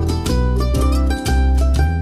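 Background music: a quick melody of pitched notes over a strong bass line.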